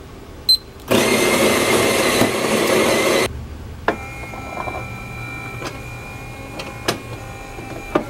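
Miele CM6310 bean-to-cup coffee machine starting an espresso. A short touchscreen beep comes first. Then the built-in grinder runs loudly for about two and a half seconds, followed by a quieter steady motor whine with a few clicks as the brewing unit works.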